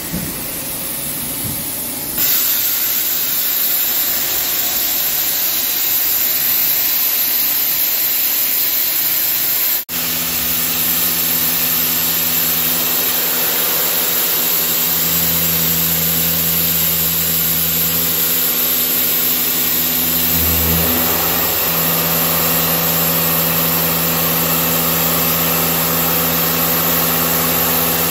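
Vertical CNC turning lathe running: a steady machine hum with a high hiss over it. The sound shifts abruptly twice, about two seconds in and again about ten seconds in, after a momentary dropout.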